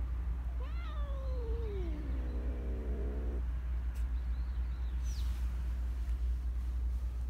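A cat gives one long meow that starts high, slides down in pitch, holds low and then stops abruptly, over a steady low rumble.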